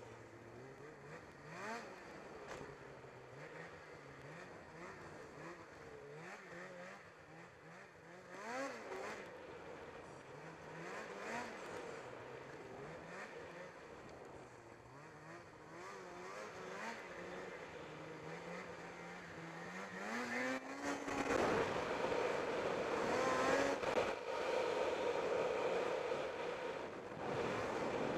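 Snowmobile engine revving up and down over and over as the throttle is worked. About twenty seconds in it climbs in pitch and holds at high revs, much louder and rougher.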